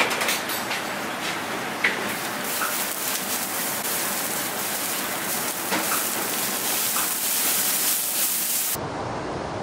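Liquid sizzling on a hot steel flat-top griddle: a steady, rain-like hiss with scattered small crackles, as the plate is wiped and sprayed from a spray bottle. The hiss grows stronger about two seconds in and changes abruptly to a quieter hiss near the end.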